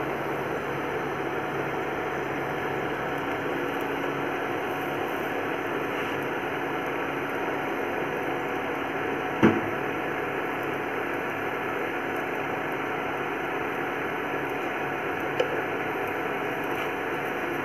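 Steady hiss and hum of a paratha frying in oil on a nonstick tawa. A wooden spatula knocks against the pan once about halfway through and taps lightly again near the end.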